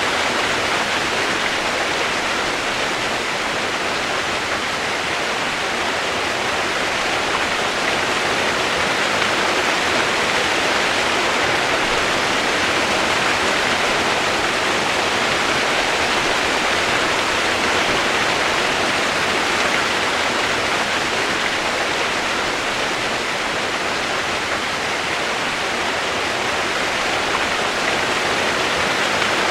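Steady rushing water, an even, unbroken hiss with no pauses or changes.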